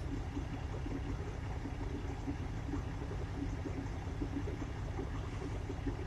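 Truck engine idling, a steady low rumble heard from inside the cab.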